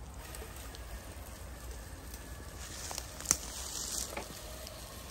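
Tyres of a Traxxas TRX-4 Defender RC crawler rolling over dry fallen leaves, a scattered crackling and rustling, with one sharp click about three seconds in.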